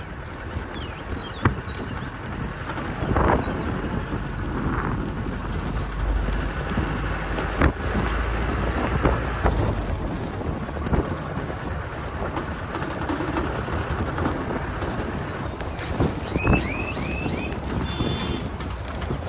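Off-road jeep driving over a rough track, with a low engine rumble and repeated knocks and clunks from the bumpy ride. A few short high chirps come near the end.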